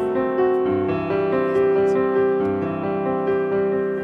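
Background piano music: sustained notes following one another at an even pace.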